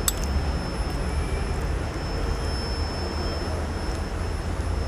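Steady low outdoor background rumble with a faint high whine, and a single sharp click just as it begins.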